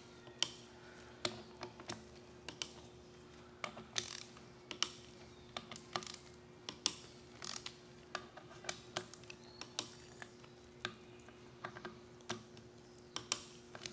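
Ratchet wrench with a 10 mm socket clicking in short, irregular runs as it cracks loose the camshaft bearing-cap bolts on a Ford 5.4L three-valve cylinder head, a quarter turn at a time.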